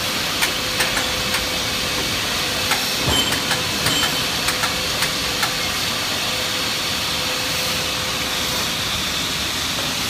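Plastic-sheet cutting machine running on compressed air: a steady hiss with light clicks scattered through the first five seconds or so, and a faint steady hum that stops near the end.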